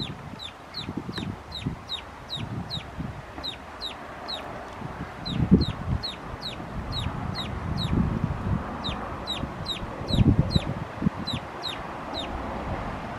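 Chickens next door: a high, falling peep repeated about twice a second, over bursts of low clucking that come and go.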